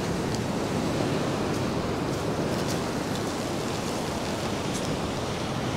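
Ocean surf breaking and washing up a sandy beach, a steady rush of noise.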